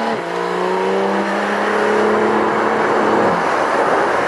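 Porsche 991 GT3 RS's 4.0-litre flat-six accelerating: its pitch drops at an upshift right at the start, then climbs slowly through the gear. About three seconds in the engine note falls away as the throttle is lifted, leaving road and wind noise.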